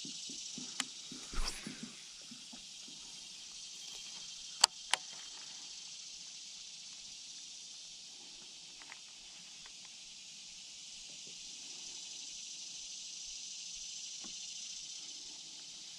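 Steady high-pitched insect chorus, with a few sharp clicks, the loudest two close together about five seconds in.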